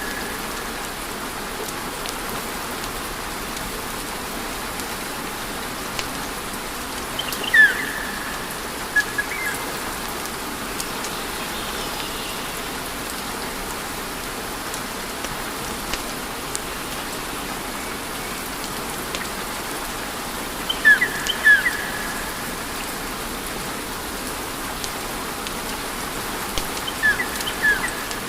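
Wood fire burning with a steady crackling hiss, broken by a few brief, sharp high-pitched pops in small clusters about 8, 21 and 27 seconds in.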